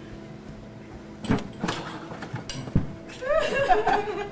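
Handheld microphone being handled on its stand, giving several sharp knocks and thumps, then a short burst of a person's voice about three seconds in, over a steady electrical hum.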